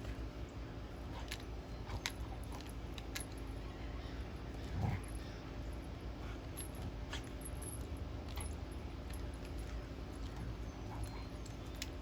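A dog moving about, with scattered light clicks and jingles and one short low whine about five seconds in.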